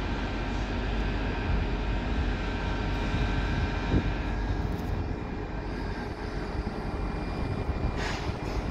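TGV high-speed trainset humming steadily at the platform: a constant electric drone with several held tones over a low rumble.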